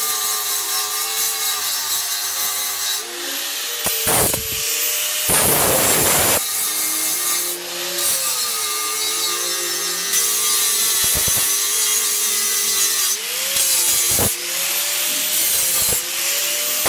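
Handheld angle grinder cutting square steel tubing: a steady motor whine whose pitch sags and recovers as the disc bites into the steel, with several louder rasping stretches of the disc grinding through the metal.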